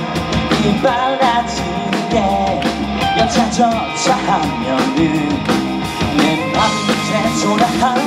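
A rock band playing a song, with drums, guitar and a voice singing over them.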